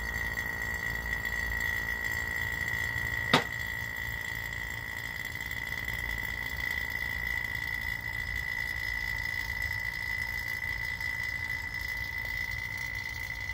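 AC vacuum pump running steadily, evacuating the air-conditioning system down into vacuum, with a constant high-pitched tone over a low hum. A single sharp click about three seconds in.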